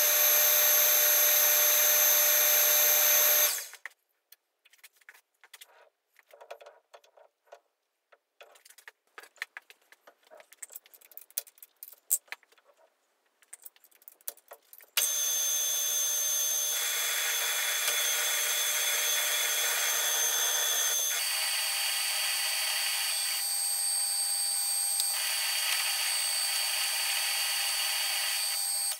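Small metal lathe running at raised spindle speed for a fine finishing pass on a steel part, a steady whine with several fixed tones. It stops about four seconds in, leaving a quiet stretch of small metallic clicks and handling noises, then starts again about fifteen seconds in and runs steadily, its tone shifting around twenty seconds in.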